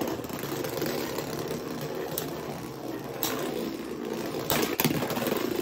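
Two Beyblade X spinning tops whirring and scraping steadily as they travel around a plastic battle stadium. A few sharp clacks of impact come about two, three and four and a half seconds in.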